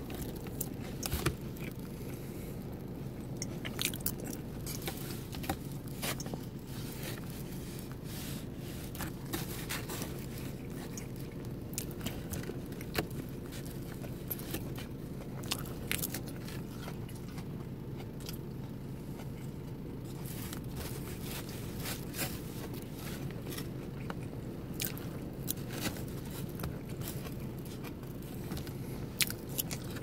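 Close-up chewing and crunching of egg salad with romaine lettuce, with scattered clicks and scrapes from the clear plastic container, over a steady low hum.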